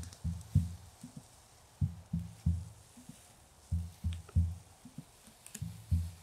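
Deep, low thuds in a slow heartbeat-like rhythm, coming in clusters of two to four close beats about every one and a half to two seconds.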